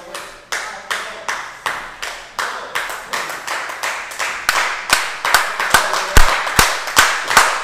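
Small audience clapping in a steady rhythm, about three claps a second, growing louder and fuller as more hands join. From about five seconds in, deep thumps fall in with the beat.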